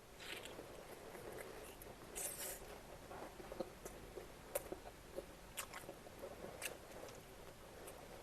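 Close-up eating of steamed vegetable momos: soft biting and chewing with wet mouth noises, and a series of sharp clicks about once a second through the middle.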